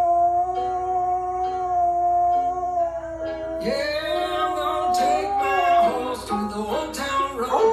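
Dog howling along to a country-rap song: one long, steady howl for the first three seconds or so, then wavering howls as the song's singing and guitar come in.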